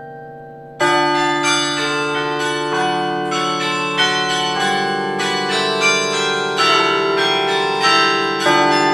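Carillon bells of Storke Tower played by hand from the baton keyboard. Earlier notes die away, then a loud chord strikes about a second in, and a melody of struck bells follows, each note ringing on under the next.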